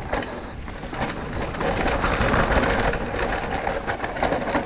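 Electric mountain bike descending a dirt trail: tyres rolling over rough ground, the bike rattling and wind rushing on the microphone, growing louder about a second and a half in.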